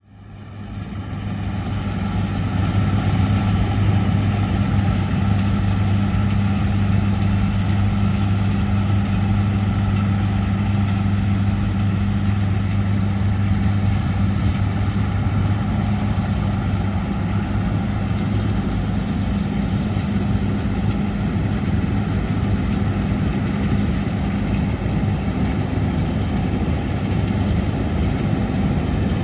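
A large John Deere harvest machine's diesel engine running steadily with a deep, even hum. It fades in over the first couple of seconds.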